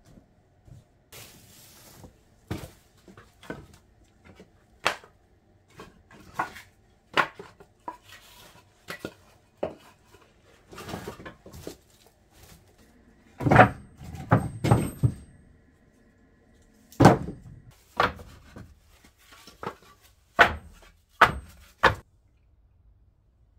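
Pieces of split firewood knocking and clattering together as they are gathered by hand from a woodpile, in irregular sharp wooden knocks. The loudest come in a quick cluster about halfway through and in several sharp strikes near the end.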